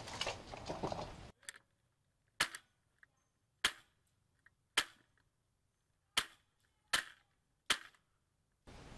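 Polar Star HPA-powered airsoft DMR firing single shots: about seven sharp pops, roughly one a second, with dead quiet between them. Before the first shot there is a second of rustling field noise.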